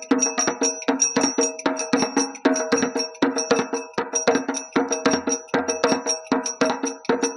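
Rhythmic folk percussion accompaniment: an even run of sharp strikes, about four to five a second, with a steady metallic ringing carried between the strokes.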